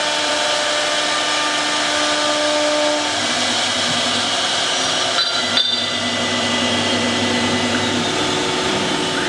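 4.5 kW CNC wood router running: a steady machine noise with several steady whining tones from the spindle and drives. The tones shift about three seconds in, and two brief clicks come a little past halfway.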